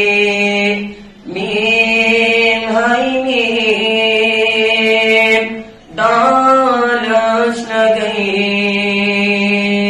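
A single voice singing a Kashmiri naat, unaccompanied, in long held notes with slight wavering ornaments. The singing breaks briefly for breath about a second in and again just before the six-second mark.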